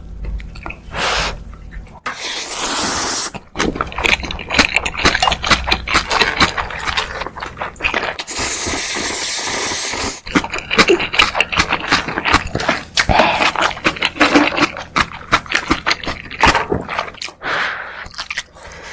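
Close-miked food preparation: repeated taps, clicks and scrapes of utensils and ingredients being handled, with stretches of rustling hiss.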